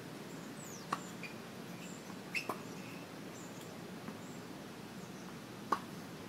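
Tennis ball hits and bounces on a hard court: sharp pops about a second in, a close pair around two and a half seconds, and the loudest near the end. Faint short high chirps, like birds, between them.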